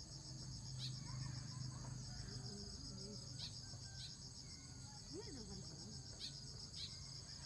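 Crickets trilling steadily in a fast, even pulse, with short high chirps now and then and a faint steady low hum underneath.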